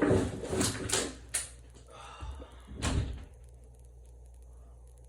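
A burst of clattering with several sharp knocks for about a second and a half, then one heavier thump about three seconds in.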